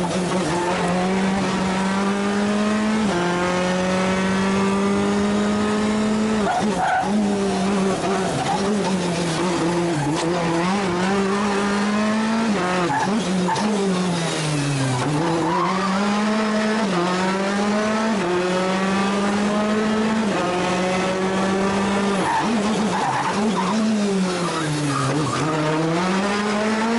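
Rally car engine at full throttle, its pitch climbing through the gears and stepping down at each quick upshift. The pitch drops away sharply about halfway through and again near the end as the car brakes and shifts down for tight corners, with tyre and road noise underneath.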